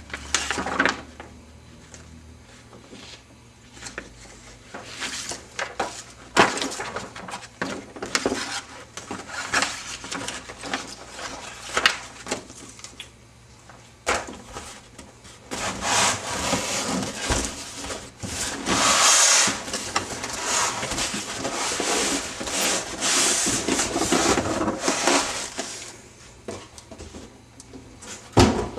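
Packaging of a boxed scale-model crane being handled and unpacked: scattered taps and knocks, then from about halfway through some ten seconds of nearly continuous rubbing and scraping, as of the polystyrene insert and trays being worked apart.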